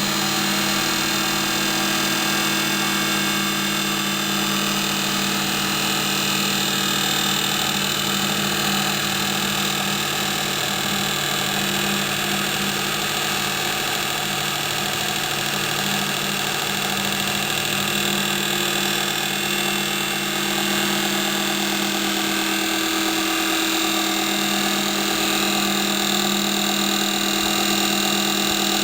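Hapfo copy lathe running steadily while turning oak table legs: a constant machine hum with a dense hiss over it.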